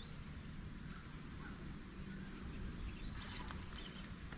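Quiet outdoor background: a steady, thin, high-pitched insect drone over a low rumbling hiss, with a faint short rising chirp about three seconds in.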